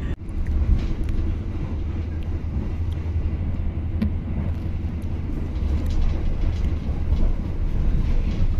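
Steady low rumble of a moving passenger train carriage running along the track, heard from inside the car.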